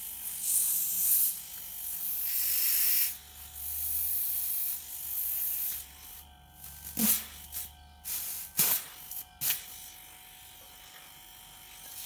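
ZEM GL45AA hermetic refrigerator compressor running with a faint steady hum while air hisses out of its discharge tube for about six seconds, the compressor working as a home-made air pump. A few sharp knocks follow about seven to nine seconds in.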